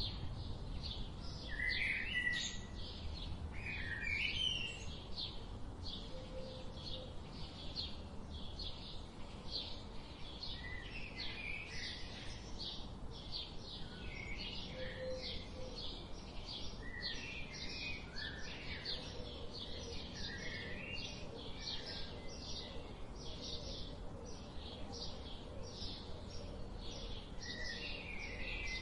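Songbirds chirping: one bird repeats a short high note about twice a second without pause, while others add scattered lower chirps, over a faint low background rumble.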